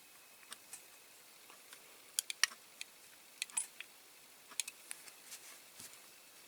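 Scattered small sharp clicks and ticks of a screwdriver and tiny screw against the metal of a diecast toy as the screw is worked into its hole, in small groups with pauses between.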